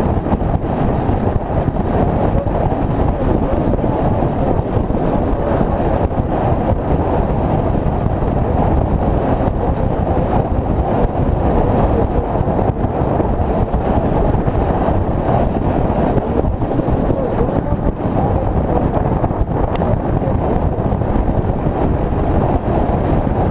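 Steady wind rush buffeting the microphone of a motorcycle riding at highway speed, mixed with the motorcycle's road and engine noise.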